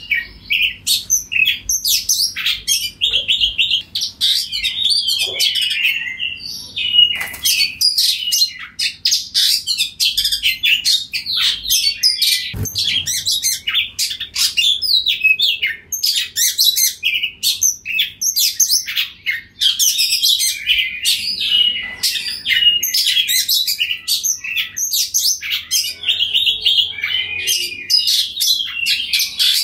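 Oriental magpie-robin singing a continuous, varied song of rapid whistles and chirps with only brief pauses.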